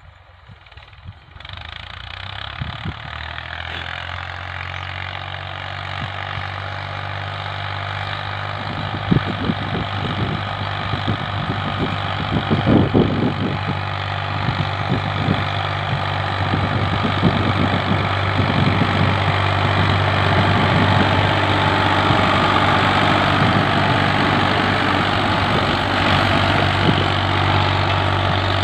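Ford 4000 tractor's three-cylinder engine running steadily under load as it pulls a ridger through ploughed soil, growing louder as the tractor approaches. A few low thumps come near the middle.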